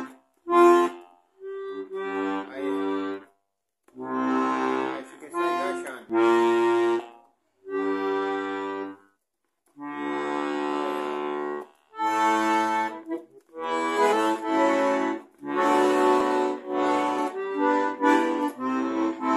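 Button accordion playing chords and short phrases, each lasting a second or so, with brief pauses between them. The instrument is out of tune and awaiting repair.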